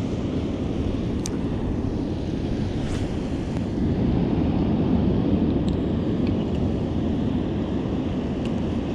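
Wind buffeting the microphone: a steady low rumble that swells a little a few seconds in, with a few faint clicks.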